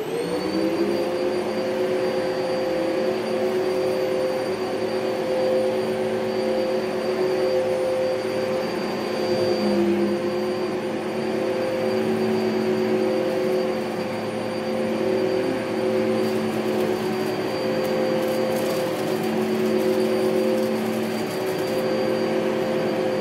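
Upright vacuum cleaner switched on, its motor spinning up to speed and then running steadily with a high whine as it is pushed over hallway carpet.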